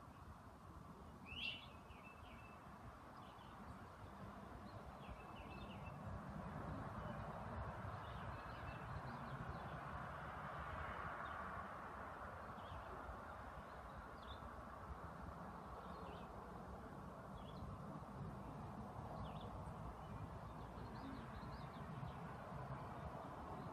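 Faint, scattered bird chirps, short and high, every second or so over a steady low background hiss and hum.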